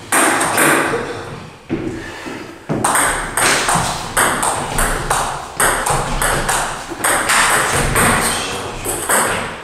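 Table tennis rally: the celluloid-type ball clacking off the players' bats and the Joola table, about two hits a second, each hit ringing on in the hall.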